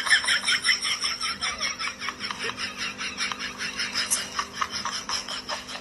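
Rapid, high-pitched giggling laughter, pulsing several times a second, over a faint steady hum.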